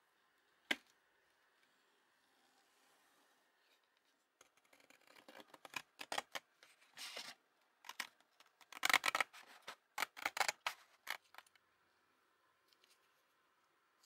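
Scissors cutting stiff brown paper: a run of snips and paper rustles that starts about four seconds in and stops around eleven seconds. A single sharp click sounds just under a second in.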